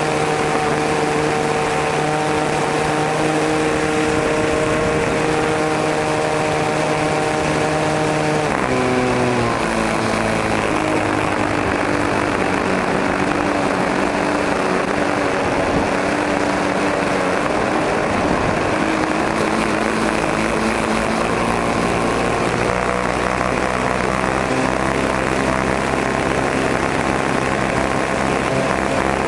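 O.S. 40 model aircraft engine spinning the propeller of an RC plane in flight, heard close up from on board. It runs at a high steady pitch, is throttled back sharply about a third of the way in, runs lower through the middle, and is opened up again near the end.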